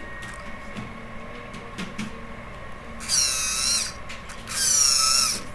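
A 180-degree hobby servo whining in two short runs of just under a second each as it pushes a 10 cc syringe plunger, with a few faint clicks before the first run.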